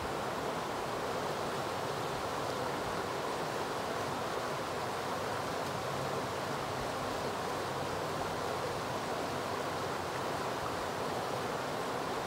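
Shallow river running over a rocky riffle: a steady, even rush of water.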